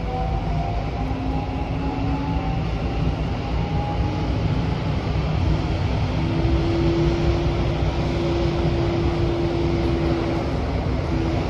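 Interior running noise of an SMRT CT251 metro train: a steady low rumble with a faint motor whine that shifts between pitches, a longer steady tone holding from about six seconds in to near the end.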